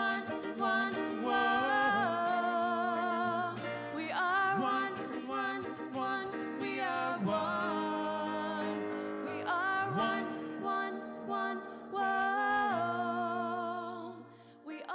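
Song performance: a singer holding long notes with vibrato, a new phrase sliding up every two to three seconds, over steady low instrumental accompaniment; the music drops in level near the end.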